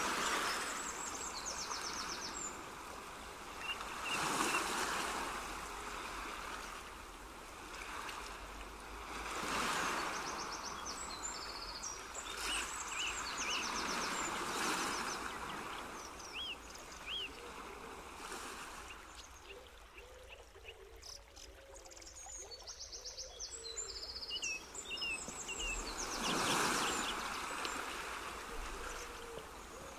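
Background nature ambience of rushing water that swells and fades every few seconds, with high chirps and short trills over it.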